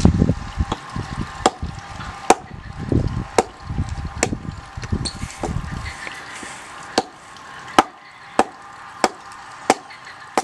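Chopping wood: about a dozen sharp blows, roughly one every 0.7 s with a pause of about two seconds midway, each ringing briefly. Duller low thuds come along with them through the first half.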